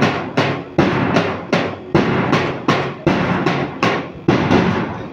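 A drum beaten in a steady, even beat of about two and a half strokes a second, each stroke ringing briefly, keeping time for a group exercise drill.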